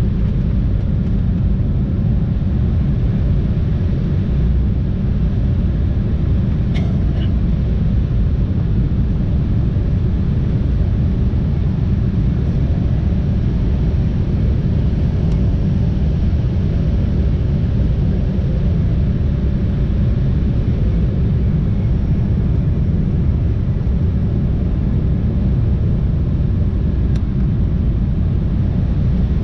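Steady low rumble of jet engine and airflow noise inside the cabin of an Embraer E175 in flight, heard from a seat beside the wing and its General Electric CF34 turbofan.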